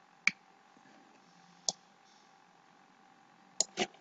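Computer mouse clicking four times: single sharp clicks about a quarter-second in and near the middle, then a quick pair near the end.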